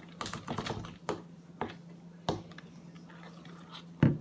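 Irregular sticky clicks and taps from slime being kneaded and its containers being handled, with a pair of louder taps near the end. A steady low hum runs underneath.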